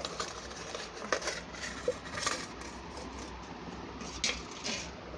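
Handling and movement noise from a phone being carried: a few scattered clicks and knocks over a steady background hiss.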